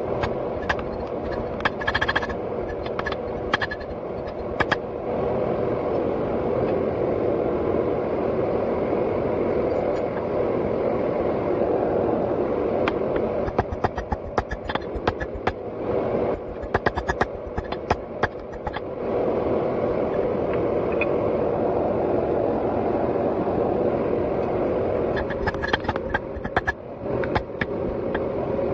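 Hand hammer striking hot steel on an anvil in several runs of quick blows, over a steady roaring noise.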